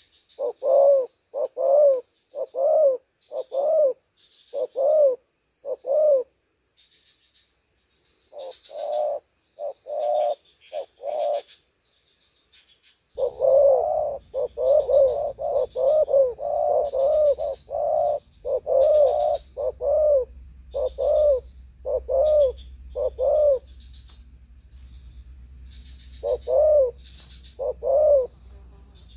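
Spotted doves cooing: a series of short, repeated low coos in phrases, with pauses around 7 and 12 seconds in, then a busier stretch of overlapping coos from about 13 seconds. A low background rumble comes in at the same time, under a faint steady high tone.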